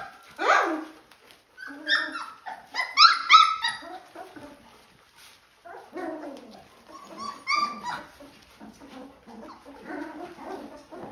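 Young Golden Retriever puppies whining and yipping: high-pitched cries that come in several bouts, some rising or falling in pitch.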